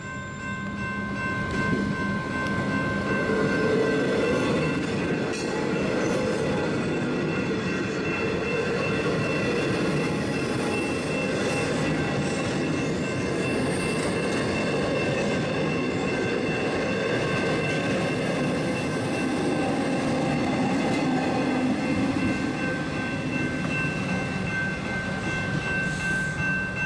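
Electric suburban trains (Comeng and Siemens sets) running past close by: a steady rumble of wheels on the rails, with a couple of thin, steady high tones over it.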